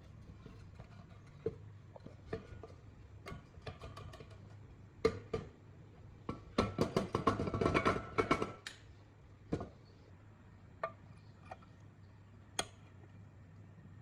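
Hard parts and tools being handled on a workbench: scattered clicks and knocks, with a quick rattling run of clicks for about two seconds in the middle, over a low steady hum.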